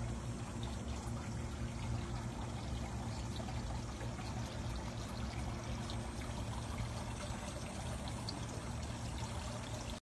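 Garden fountain water pouring and trickling steadily.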